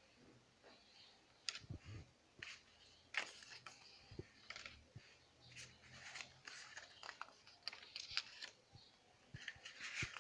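Faint rustling and sliding of thick scrapbook paper strips as they are picked up and laid down on a table, a run of short crisp rustles and light taps.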